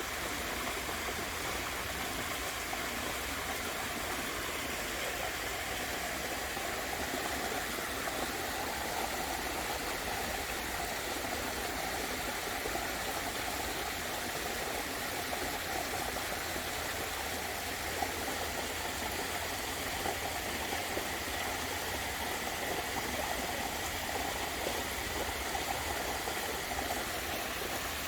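Waterfall: a steady rush of falling water, with a few faint ticks.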